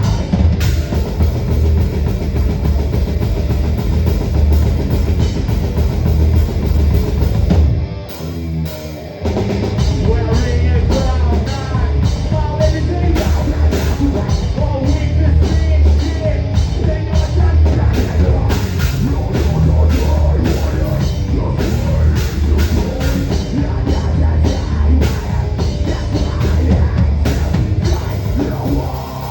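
Heavy metal band playing, heard as raw sound from a camera at the drum kit. The drums are up front with fast, dense kick drum strokes. About eight seconds in the drums drop out for roughly a second, then the full band comes back in.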